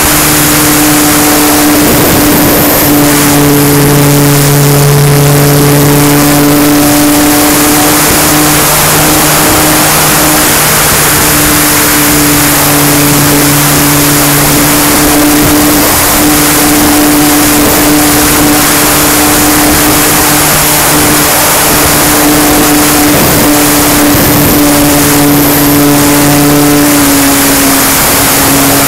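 An RC plane's E-flite Power 160 brushless electric motor on 12S, driving its propeller, heard from on board: a loud, steady propeller drone whose pitch shifts slightly a few times as the throttle changes, over a rush of wind across the microphone.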